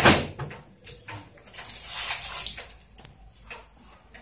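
Red shipping tape being peeled off a copier's plastic panels and crumpled in the hand. A sharp rip right at the start, then scattered crackles and a longer rasping stretch about two seconds in.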